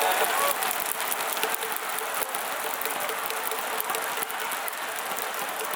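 Large stadium crowd clapping and cheering: a steady wash of crowd noise with many scattered claps.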